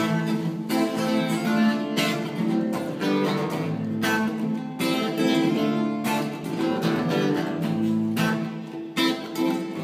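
Acoustic guitar strummed in a steady rhythm, chords ringing with no voice.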